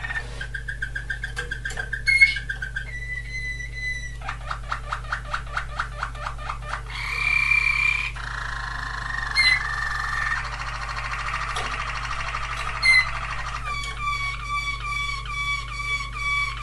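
Waterslager canary singing a long, varied song. Fast trills, rhythmic runs of repeated notes and held whistled tones follow one another every few seconds, ending in a chopped phrase that jumps between two pitches.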